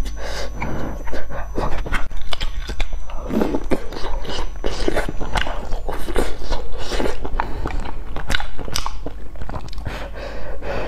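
Close-miked mouth sounds of a person eating spicy noodle soup: chewing and slurping from a bowl of broth, with irregular wet smacks and clicks.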